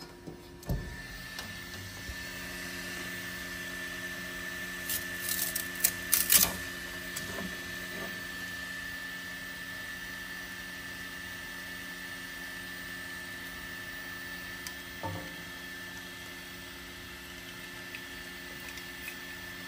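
Steady multi-tone fan hum, with a click as the 3D printer's door is opened, then a burst of hard plastic clattering as a long printed part is lifted out of the chamber, and a single knock later on.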